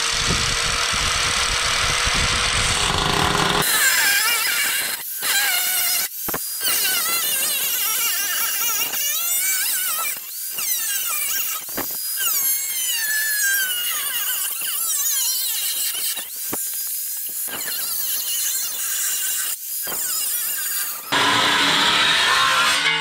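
Warrior angle grinder with a 4-inch steel-cutting cut-off wheel slicing through a snowmobile's aluminum tunnel: a very loud, wavering, high-pitched screech of wheel on metal. The sound dips out briefly several times as the wheel is lifted and set back into the cut.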